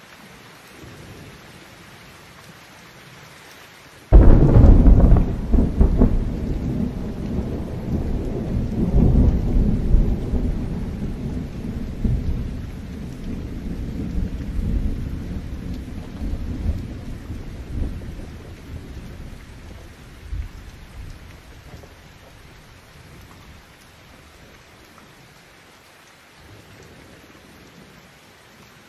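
Heavy rain falling steadily, broken about four seconds in by a sudden loud thunderclap that rolls on as a long low rumble and fades out over the next fifteen seconds or so, leaving the rain alone.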